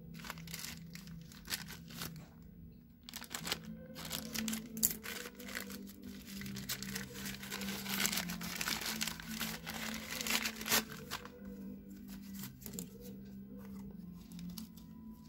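Plastic courier mailer crinkling and tearing as it is snipped open with scissors and pulled apart, busiest in the middle. Near the end, scissors cut the tape on a small cardboard box. Background music plays throughout.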